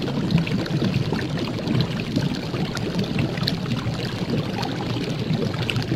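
Steady rushing, watery noise with scattered faint crackles.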